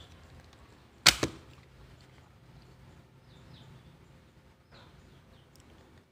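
A single sharp knock about a second in, then low background with faint, high chirping.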